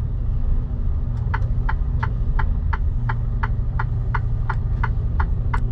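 Truck's diesel engine idling with a steady low rumble heard from inside the cab, and from about a second in the indicator relay ticking evenly, about three clicks a second.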